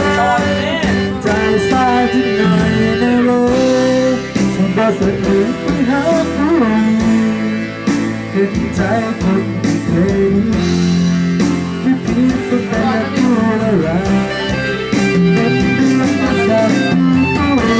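Music from a Thai song with guitar and a steady beat, in an instrumental passage.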